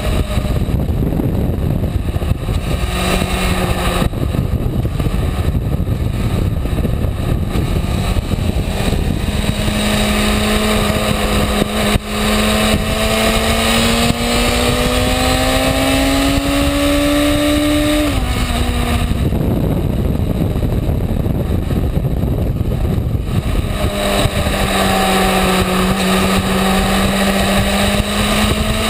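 Honda CB600F Hornet's inline-four engine running under way, with heavy rushing wind noise over the microphone. The engine note climbs slowly, drops suddenly about eighteen seconds in, and climbs again over the last few seconds.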